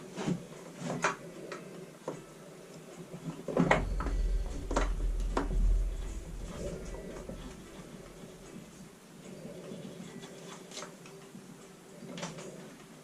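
Scattered clicks and knocks of hard plastic parts being handled and fitted on a backpack leaf blower's pull-start housing, with a heavier run of knocks and a low rumble from about three and a half to six seconds in.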